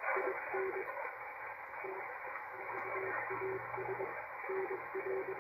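A Morse code (CW) signal on a shortwave SDR receiver: a single low-pitched tone keyed on and off in dots and dashes over steady band hiss.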